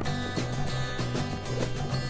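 Background music: a rock song with guitar and a steady drum beat.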